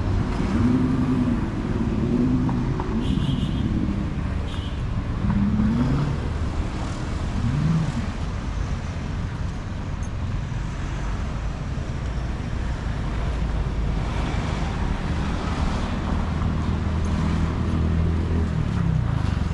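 Road traffic: vehicle engines running and passing close by, their pitch rising and falling, with a steady engine hum over the last few seconds.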